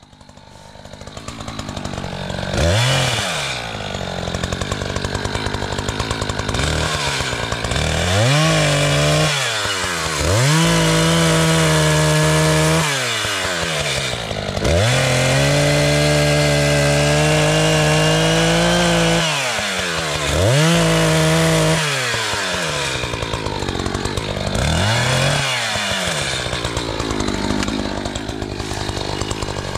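ECHO CS-590 Timber Wolf two-stroke chainsaw cutting into a small tree trunk. It is revved up again and again, held at high revs for a few seconds at a time in the cut, and drops back toward idle between runs.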